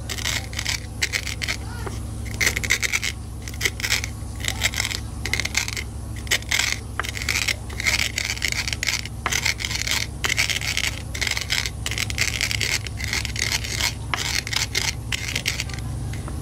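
A pestle scraping and grinding dry instant noodles in a wooden mortar, in quick repeated strokes with short pauses between them, crushing the noodles fine.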